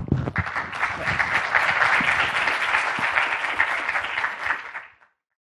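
Audience applauding: many people clapping together, which cuts off suddenly near the end.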